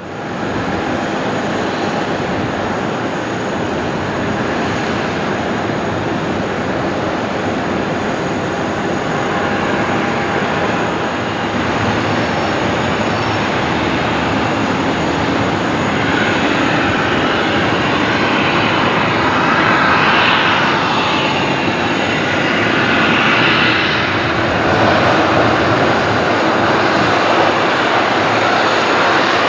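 Airbus A340-300 jet engines running, a steady rushing jet noise that grows slightly louder in the second half.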